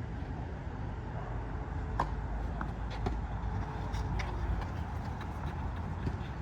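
Steady low rumble with a few short, sharp knocks roughly a second apart, starting about two seconds in, typical of a tennis ball being hit and bouncing during play.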